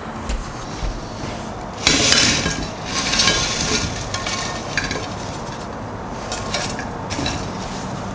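Crispy oven-baked potato chips tipped and scraped out of an oven pan onto a china platter: a loud rush of scraping and clattering about two seconds in, a second burst a second later, then scattered light clicks as the last chips drop.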